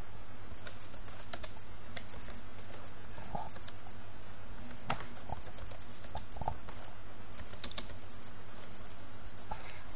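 Computer keyboard keys clicking in slow, irregular typing, a few keystrokes at a time, over a steady low hum.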